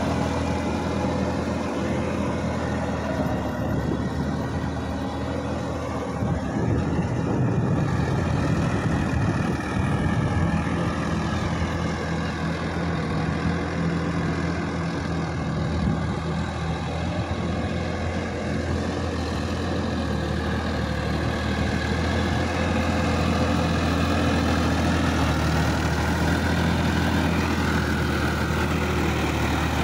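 Sonalika DI-50 RX tractor's diesel engine running steadily under load as it drags a rear tillage implement through a flooded paddy field.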